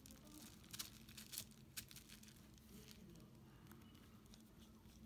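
Near silence, broken by a few faint clicks and light taps as small metal axle parts and a tool are handled.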